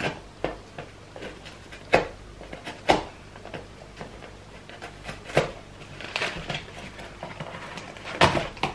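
Hands carefully working open a small cardboard box: scattered sharp taps and knocks of fingers and the box, with a stretch of scraping around six seconds in and a few quick knocks near the end.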